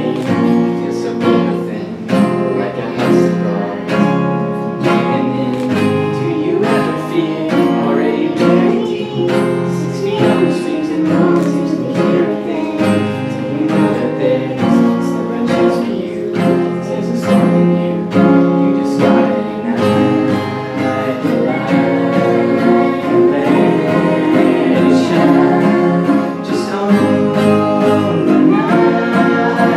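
Two acoustic guitars strummed steadily in rhythm, with a girl singing the melody over them.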